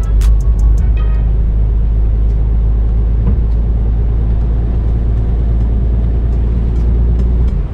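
Lorry's diesel engine and tyres heard inside the cab while driving: a steady, loud low drone.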